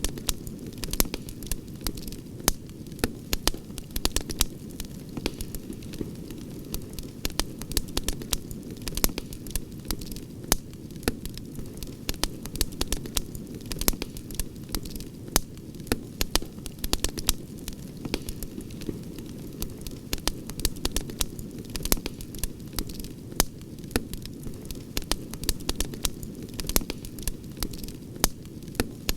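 Wood campfire crackling, with many sharp, irregular pops and snaps over a steady low rush of flames.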